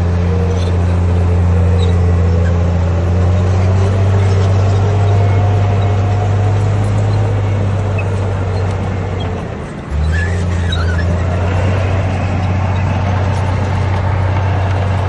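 Komatsu D58P bulldozer's diesel engine running steadily under load, a deep drone with a fainter whine that slowly rises in pitch over the first several seconds. A little over nine seconds in, the engine note sags briefly, then comes back abruptly and runs on steadily.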